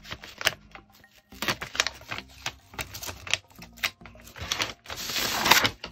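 Glossy plastic sticker sheet crackling and crinkling as a die-cut paper sticker is peeled off its backing: a run of irregular clicks and small crackles, with a longer, louder crackle about five seconds in.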